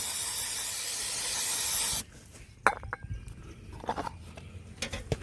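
Aerosol starter fluid spraying in one steady hiss for about two seconds, cut off sharply, given to a lawnmower engine that won't start. A sharp click follows shortly after.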